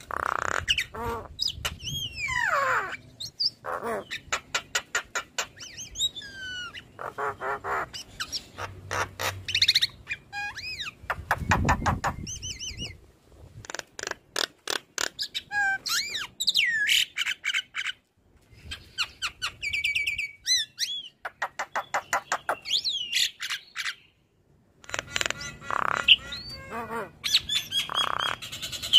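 Javan myna (jalak kebo) singing a long chattering song: rapid trains of clicks and rattles mixed with whistled notes that glide up and down, broken by short pauses.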